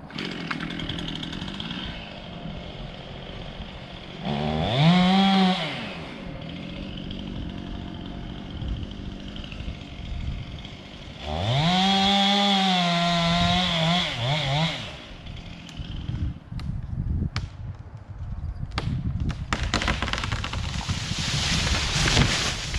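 Chainsaw running at idle and revved up to full speed twice, a few seconds each time, its pitch sweeping up and then holding high, about four seconds in and again around eleven seconds in. Near the end come a series of sharp cracks over a rushing noise.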